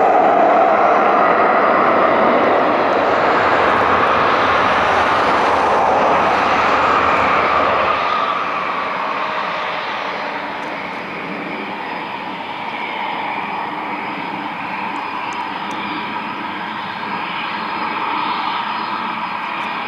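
Eurofighter Typhoon jet engine noise, loud at first, then dropping off about eight seconds in to a steadier, quieter level as the jet moves away.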